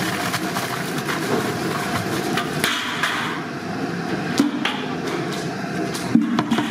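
Irregular metal clanks and knocks as a large aluminium vessel and a long metal stirring paddle strike the rim of a big aluminium cooking pot while ground wheat is emptied into the broth, over a steady background hum.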